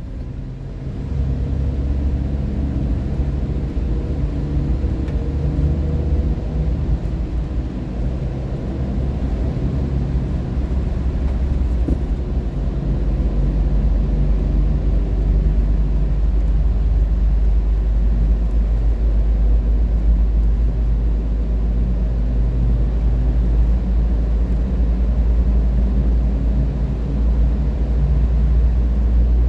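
Steady low rumble of a vehicle's engine and tyres at highway speed, heard from inside the cabin; it grows louder about a second in.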